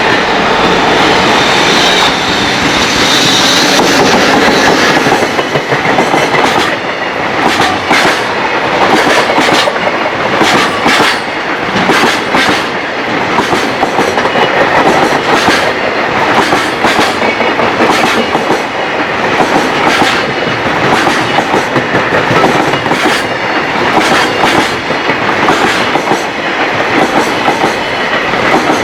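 A long freight train passing close by. A steady run for the first few seconds gives way to a regular clickety-clack of wheels over the rail joints, repeating about once a second for the rest of the passage.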